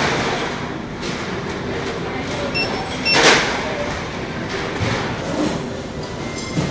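Busy self-service restaurant background: indistinct crowd chatter and general bustle, with two short high beeps a little before midway.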